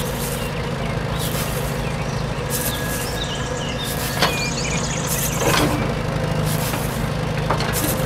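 Steady low rumble of a heavy vehicle's engine running, with a sharp click about four seconds in and a few faint high chirps.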